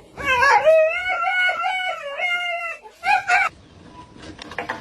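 A pet animal howling: one long wavering call, then two short ones. After a sudden cutoff about three and a half seconds in, faint clicking follows.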